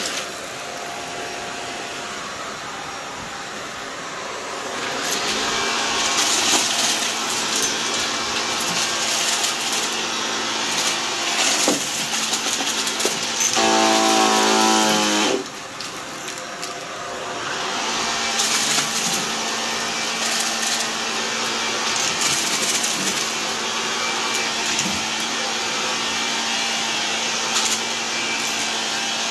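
Shark Lift-Away upright vacuum running on carpet, with crackling and crunching as it sucks up scattered debris and a few sharp clicks of bits hitting inside. About halfway, a loud pitched whine lasts a couple of seconds, then the sound drops briefly and builds back up.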